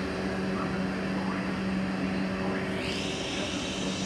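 South Western Railway electric multiple-unit train pulling away from the platform: a steady electrical hum, with a whine rising in pitch about three seconds in as the train gathers speed.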